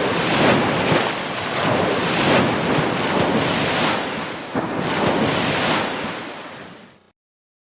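Ocean surf washing continuously, swelling and easing as waves break. It fades out and stops abruptly about seven seconds in.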